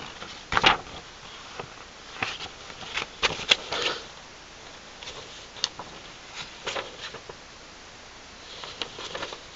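Paper rustling and crinkling in short, irregular bursts as papers are handled, loudest about half a second in.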